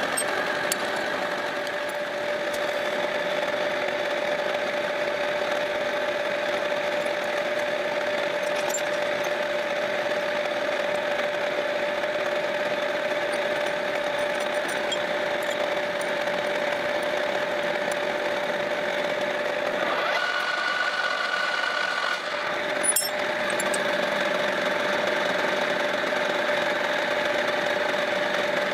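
Metal lathe running steadily with a constant whining hum. About twenty seconds in it gives way for a couple of seconds to a higher steady tone, a sharp click follows, and the steady running resumes.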